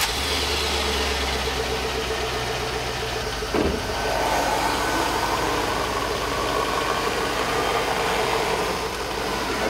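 Chevrolet Suburban's engine running steadily, freshly filled with Kirkland 5W-30 full synthetic oil. There is a short bump about three and a half seconds in.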